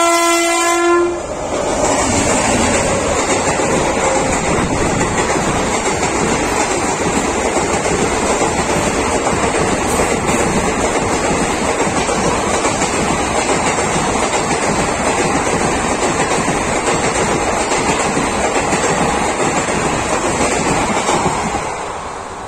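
WAP-7 electric locomotive's horn sounding, stopping about a second in. Then the steady, loud wheel-on-rail rattle of the express's passenger coaches passing at speed close by, fading as the last coach goes past near the end.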